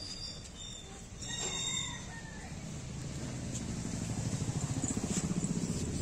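A rooster crows once in the background about a second in. After the middle, a rapid, low, even pulsing of about ten beats a second grows louder toward the end.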